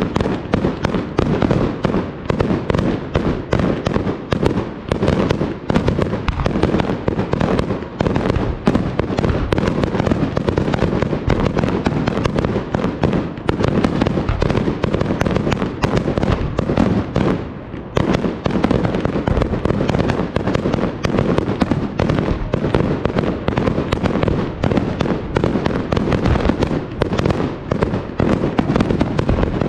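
Fireworks display: a dense, unbroken barrage of aerial shell bursts going off in rapid succession, with a brief lull about two-thirds of the way through.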